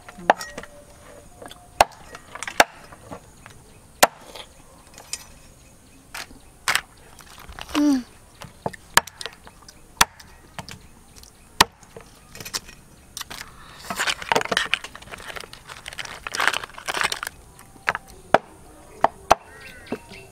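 Cleaver chopping through raw crab shells on a wooden board: single sharp chops every second or two, with a busier stretch of scraping and crunching about two-thirds of the way through.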